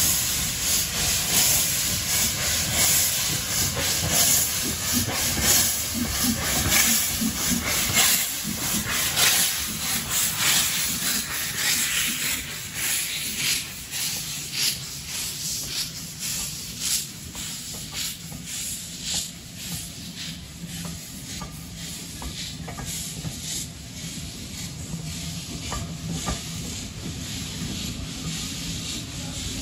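Steam locomotive exhausting in regular beats with a steady hiss of steam, the sound fading over the second half as it draws away.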